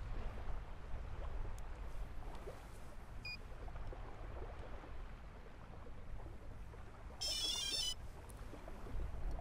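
Low, steady rumble of the shed's ambience. A very brief electronic beep comes about three seconds in, and about seven seconds in a short, high-pitched electronic chirping jingle sounds for under a second, like a phone alert.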